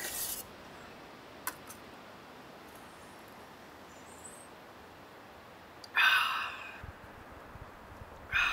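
Two loud slurping sips of black coffee from a mug, about six seconds in and again near the end, after a brief rustle at the start.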